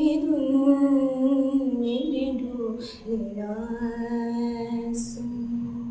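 A woman singing unaccompanied, holding long sustained notes at the end of a phrase. About three seconds in she takes a short breath, then holds a slightly lower note.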